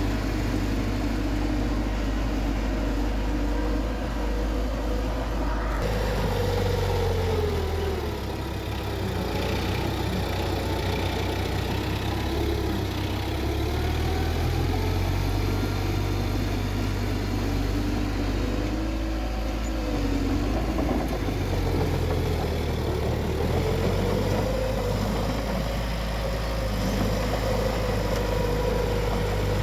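Bulldozer's diesel engine running steadily, its pitch rising and falling several times as the load changes while it works the dirt.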